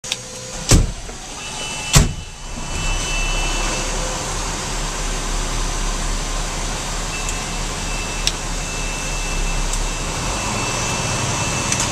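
Inside a fire engine's cab: two sharp bangs a little over a second apart, then the engine's steady low running rumble, with a faint steady high tone joining about seven seconds in.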